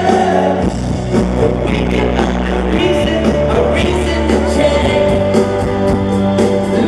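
Live rock band playing electric guitars, bass and drums at full volume, with the vocal line coming back in near the end.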